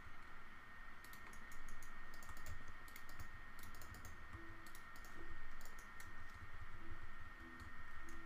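Computer keyboard keys and mouse buttons clicking in short irregular bursts, heard over a faint steady high whine.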